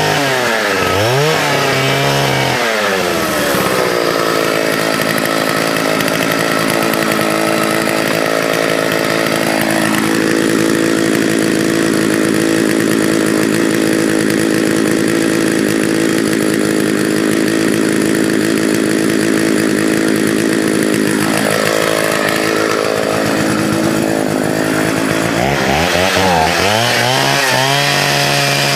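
Vintage 1979 Partner S-55 two-stroke chainsaw cutting wood. The engine revs up and down for the first few seconds, then is held at high revs through a long steady cut, and drops and revs up and down again near the end.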